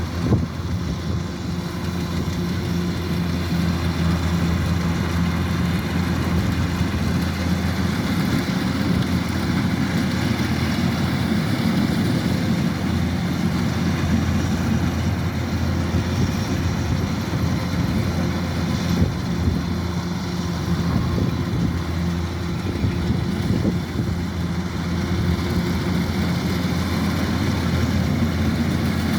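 Kubota DC-105X combine harvester's diesel engine running steadily, a constant low drone with no change in speed.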